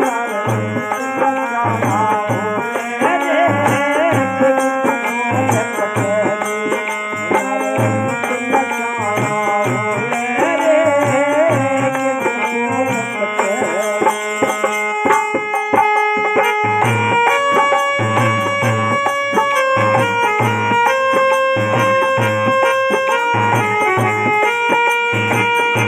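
Instrumental interlude of a devotional bhajan: harmonium and a melody line over a steady hand-drum beat, with wooden kartal clappers. The melody wavers in the first half, then settles into held harmonium tones about halfway through.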